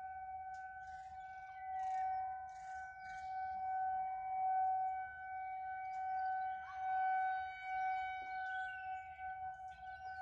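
Federal Signal 2001 rotating outdoor warning siren sounding a steady tone, its level swelling and fading every second or two as the rotating horn turns.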